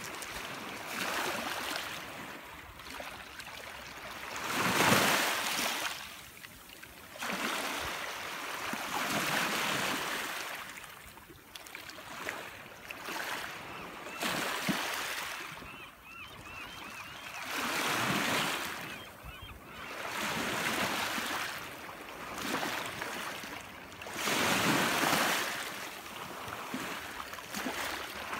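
Small waves washing onto the shore in surges every few seconds, the loudest about five seconds in.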